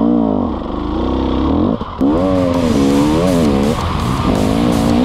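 Dirt bike engine revving up and down with the throttle. Background music with a steady beat comes in about two seconds in.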